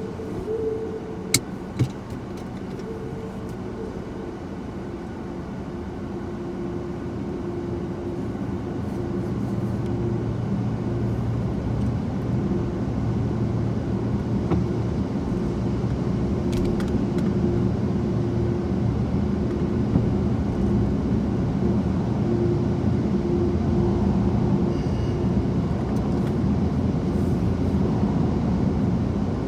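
Ryko SoftGloss Maxx car wash machinery running, heard from inside the car's cabin: a steady rumble with a humming tone that grows gradually louder as the car nears the spinning cloth brushes. Two sharp clicks come about half a second apart, a little over a second in.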